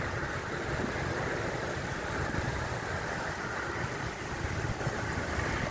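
Strong wind rushing through trees and buffeting the microphone, a steady hiss over an uneven low rumble.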